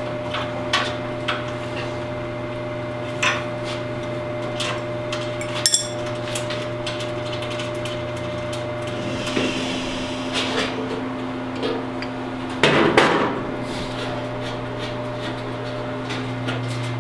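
Scattered clicks and metallic knocks of tools and hardware being handled, with a louder clatter about 13 seconds in, over a steady electrical hum.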